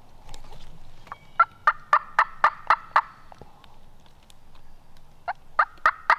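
Turkey yelping: a run of about eight evenly spaced, sharp yelps at roughly four a second, then a second run of yelps starting near the end.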